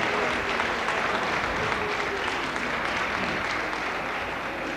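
Crowd applauding, the applause slowly dying down.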